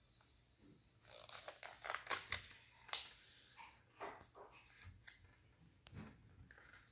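Sheet of origami paper rustling and crinkling as it is folded and pressed into creases by hand on a tabletop, with irregular crisp snaps and taps, the sharpest about three seconds in.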